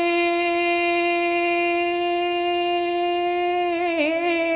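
A young man singing a Bengali song unaccompanied, holding one long steady note at the end of a line. The note wavers briefly near the end.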